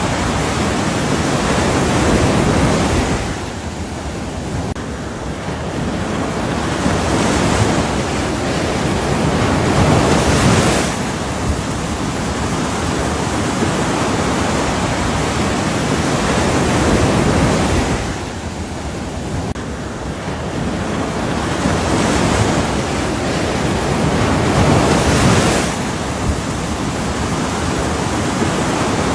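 Ocean surf: a continuous wash of breaking waves that swells and ebbs in long, slow cycles, about fifteen seconds from one crest to the next.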